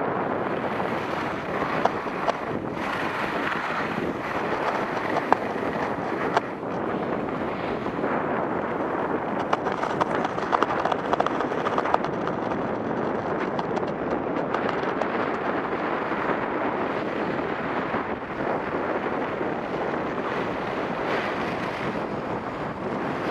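Steady rush of wind over the microphone of a camera on a downhill skier in motion, mixed with the hiss of skis running on groomed snow, with a few sharp clicks along the way.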